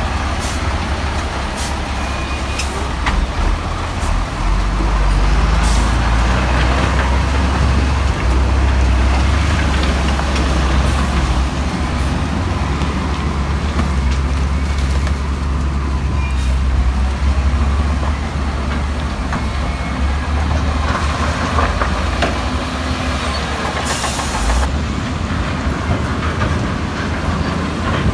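Heavy diesel earthmoving machinery working: a deep, steady engine rumble with scattered clanks, and a short hiss of air near the end.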